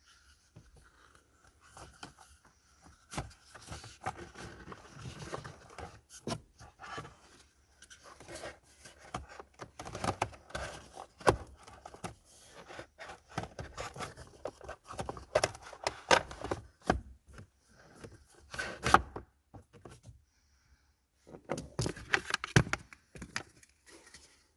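Hands working on a car's plastic air filter housing and filter: irregular clicks, knocks and scraping, with short pauses.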